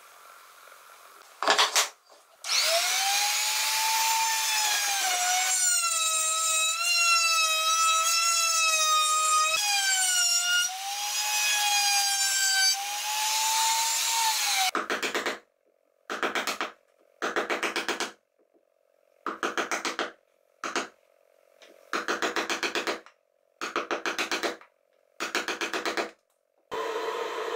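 An electric power tool working pine: a loud, high whine for about twelve seconds whose pitch sags and recovers as the tool takes load. This is followed by about eight short bursts of running, each about a second long, with pauses between them.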